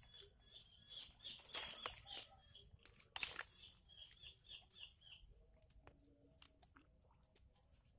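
Faint bird chirping, a run of short high notes repeated about four times a second, with a few soft crackles of dry bamboo and leaf litter as the line is worked into the hole.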